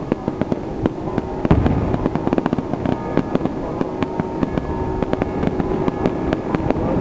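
Aerial fireworks going off in a dense, rapid string of sharp bangs and crackles, with a heavier bang about one and a half seconds in.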